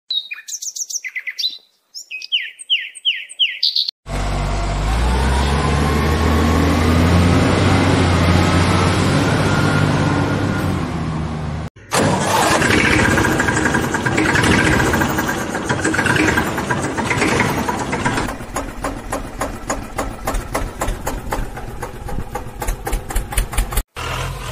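Vehicle engine sounds laid over the pictures: after a few seconds of high chirping, an engine starts and runs with rising pitch, then after a short break another engine runs and settles into a fast, even knocking beat.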